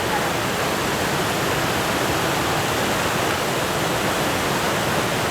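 Genesee River waterfall rushing, a steady, even roar of falling water.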